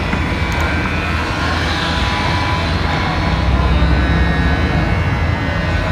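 Loud, steady machine rumble with a few faint, steady whining tones above it, beginning abruptly at the start.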